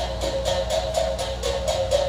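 Mouth bow (弓琴) being played, its string held in the mouth and plucked about four times a second over a steady drone, with the higher tones shifting above it.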